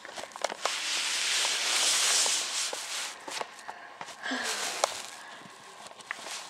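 Handling noise from small plastic toy horse figurines being moved by hand over a carpet: rustling and scuffing with scattered light taps. The rustling is heaviest in the first few seconds.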